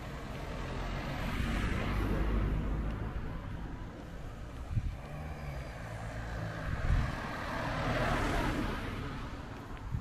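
Road traffic: two vehicles pass, one about two seconds in and another about eight seconds in, each swelling and fading, over a steady low engine hum.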